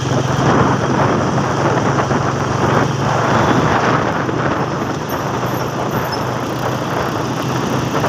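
Steady engine hum with rushing wind and road noise from a vehicle moving along the road.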